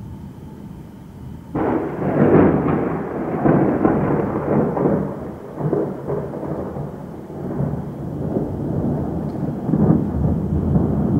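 Thunder: a clap starts suddenly about a second and a half in, then rolls on as a long rumble that swells and fades several times.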